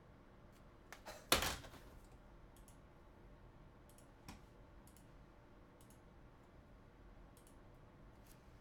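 Scattered light clicks and handling noises, with one louder sharp rustle or knock about a second and a half in and a smaller click about four seconds in.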